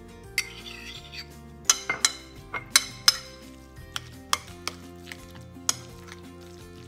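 A fork stirring a moist mayonnaise mixture in a mixing bowl, clinking sharply against the bowl's side about a dozen times at an irregular pace, fewer toward the end, over soft background music.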